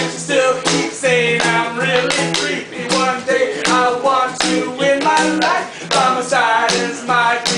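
Music: a voice singing over held instrumental notes, with frequent sharp taps or clicks.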